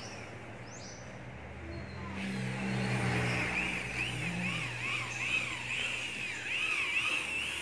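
Handheld electric power tool working a plywood sheet. Its motor whine starts about two seconds in and rises and falls over and over.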